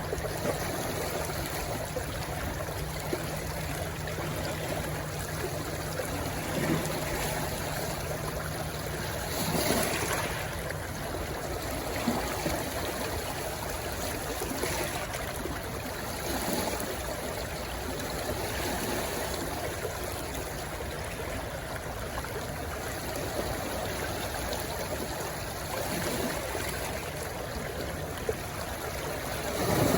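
A stream rushing and splashing where it runs into the sea: a steady watery rush that swells louder briefly a couple of times.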